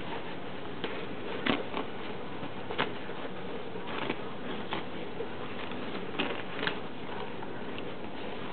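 Paper towel rustling and crinkling as pet rats tug it through wire cage bars, in irregular soft crackles over a steady hiss.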